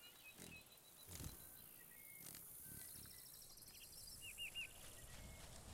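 Quiet forest ambience with scattered short bird chirps, including a quick run of three chirps about four seconds in, a fine insect-like ticking trill, and a few faint low knocks.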